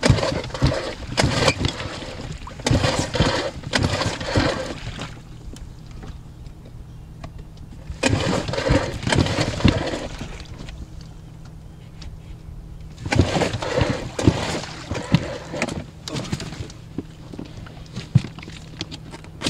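A 2003 Mercury 3.3 hp two-stroke outboard being pull-started with its recoil cord, cranking over in three bursts of pulls: near the start, about eight seconds in, and about thirteen seconds in. It does not catch, a freshly unseized engine on a new spark plug that is not yet firing.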